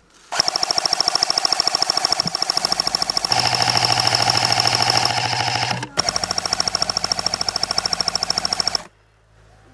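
Electric airsoft gun firing on full auto in two long bursts: a rapid, even rattle of shots over a steady motor-and-gearbox whine. The first burst lasts about five seconds and the second about three, with a brief stop between them and another near the end.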